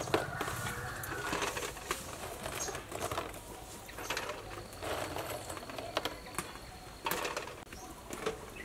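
Raw quail eggs clicking against each other as they are handled in a plastic basket and set into a metal pot: an irregular run of small sharp clicks and rattles.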